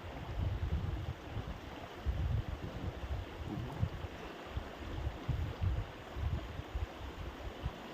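Wind buffeting the microphone in irregular low rumbling gusts, over a steady faint outdoor hiss.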